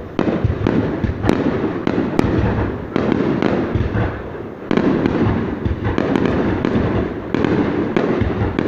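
Aerial fireworks display: shells bursting in quick succession, their booms overlapping, with a fresh loud volley every second or two.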